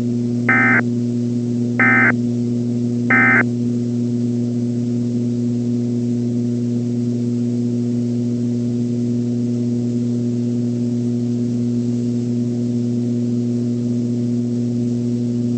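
Emergency Alert System end-of-message signal: three short bursts of warbling digital data tones about a second and a quarter apart, which close the alert. A steady low hum runs underneath throughout.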